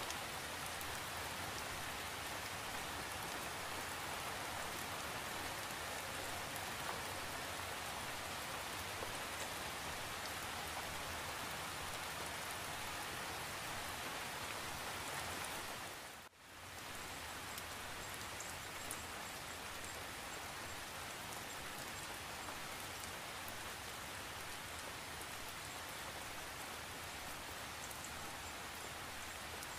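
Steady, even rain falling. About halfway through it briefly fades out and comes straight back.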